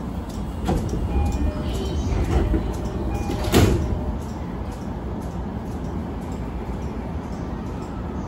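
A commuter train's passenger sliding doors closing, shutting with a thud about three and a half seconds in, over the steady low hum of the stationary train. Short chime tones sound while the doors close.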